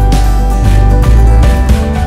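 Background music with steady sustained notes and a regular beat.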